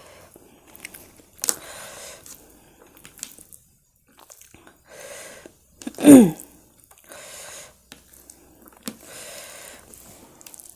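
A person breathing hard and noisily, with several separate rushes of breath, and one loud groan falling in pitch about six seconds in. It is a reaction to the burn of very spicy noodles, with a nausea she has just voiced.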